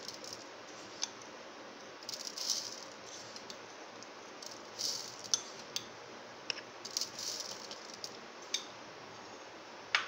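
Sugar being spooned from a glass bowl into a blender jar of grapes: three short gritty rustles of the grains sliding off the spoon, with sharp clicks of the spoon against the bowl and jar, the loudest near the end.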